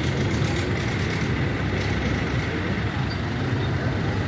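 Diesel engines of several ACE Hydra 14XW pick-and-carry cranes running steadily under load while they hold up a 35-ton train coach body, a continuous low engine rumble.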